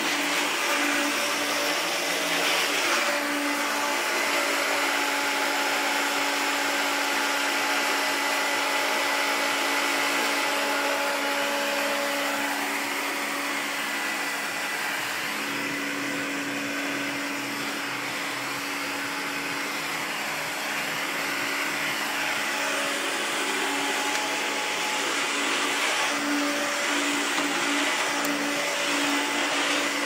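Hoover Turbopower U2198 upright vacuum cleaner running steadily: a constant motor tone over the rush of air, the roar of the turbo cleaner, a little quieter for a few seconds in the middle.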